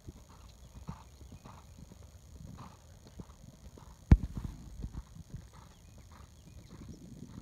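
Hoofbeats of a horse trotting on a sand arena footing, in a steady rhythm, with one sharp loud thump about four seconds in.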